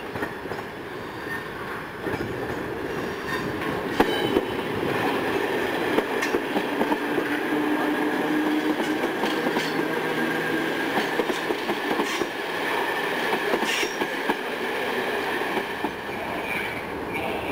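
Train running slowly through junction pointwork: wheels clicking over rail joints and crossings against a steady rumble, with a low steady tone midway and a brief high wheel squeal near the end.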